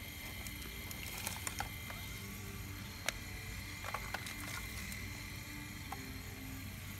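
Remote-control Cat 349 model excavator working, its motors whining steadily, with sharp clinks of shale chips knocking and falling as the bucket lifts and swings. The loudest clink comes about three seconds in.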